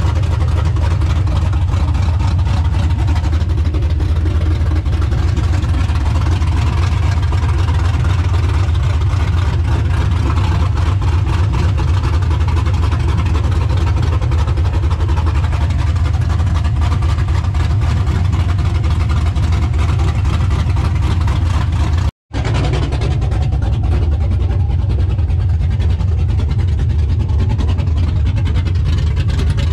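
LS V8 in a 1995 Chevy pickup idling steadily with no exhaust system fitted yet; the sound is broken by a momentary dropout about two-thirds of the way through.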